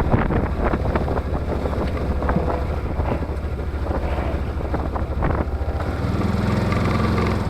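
Engine of a Yamaha Rhino side-by-side utility vehicle running with a steady low rumble, with rattling knocks and wind buffeting the microphone. About six seconds in, a steadier hum comes in.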